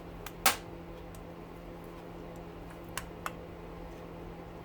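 A few sharp clicks as copper winding ends and clips are snapped and pried off a motor rotor: one loud click about half a second in, and two lighter ones around three seconds in. A steady low hum runs underneath.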